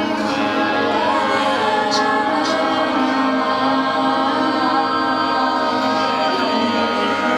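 Several voices singing a cappella, holding long wordless tones that overlap in harmony, some sliding slowly in pitch.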